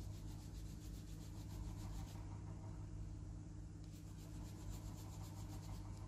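Rhythmic scratchy rubbing, several quick strokes a second, in two runs with a pause of about a second and a half between them, over a steady low electrical hum.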